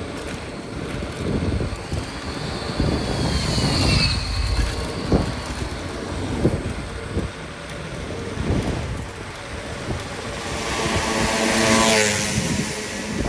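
Wind buffeting the microphone over road rumble while riding an electric scooter, with bumps from the road surface. A brief high squeal falls in pitch about four seconds in, and a motor vehicle passes close near the end, its engine and tyres getting loud and then fading.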